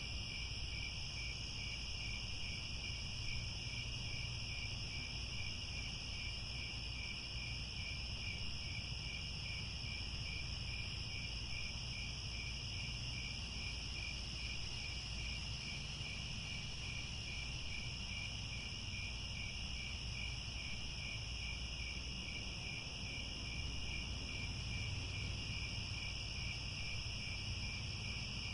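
Chorus of crickets trilling steadily, several high unbroken trills layered together, one with a faint regular pulse, over a low steady rumble.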